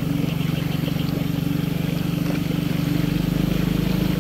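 Yamaha motorcycle's engine running steadily at low speed as the bike wades through deep floodwater. It gets a little louder and deeper about three seconds in.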